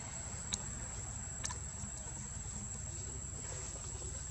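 Steady high-pitched insect drone with a low background rumble, broken by two short clicks about a second apart.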